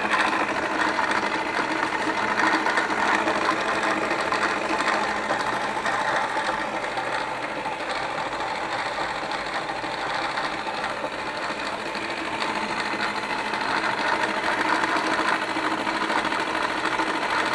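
Milling machine running at about 1000 RPM on power feed, steadily cutting across the face of an exhaust manifold.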